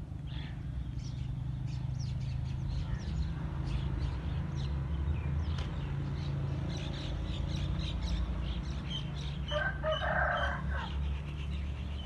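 Many short bird chirps and calls over a steady low hum; about ten seconds in comes a louder, harsher call lasting about a second.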